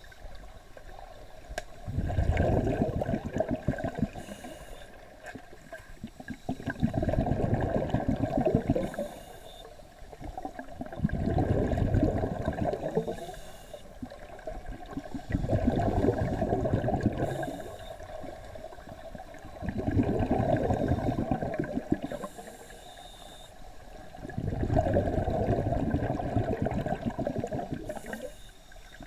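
Scuba divers' exhaled breath bubbling out of their regulators, heard underwater: six long bubbling exhalations, each two to three seconds, coming about every four and a half seconds in the slow rhythm of a diver's breathing.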